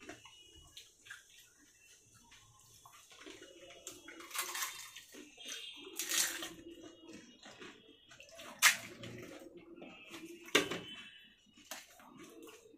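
Fuchka being eaten in a hurry: several sharp crunches of the hollow fried shells, with wet slurping of the spiced water they are filled with.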